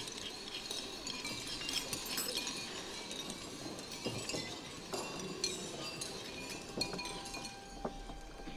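Many spoons clinking and scraping against bowls at once, as a table full of boys eats: an irregular clatter of small clinks throughout, with a few sharper ones standing out.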